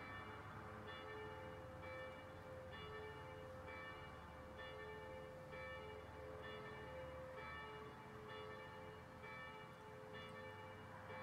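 Church bells ringing faintly, struck about once a second, two tones of slightly different pitch alternating.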